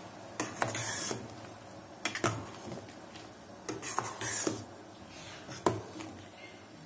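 Metal perforated skimmer clinking against a stainless steel pot while it stirs milk curdling with vinegar, with a few short splashy swishes of the liquid. The clinks are sharp and come singly, a second or two apart.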